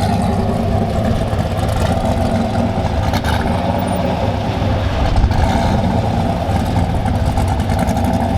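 Car engine running steadily.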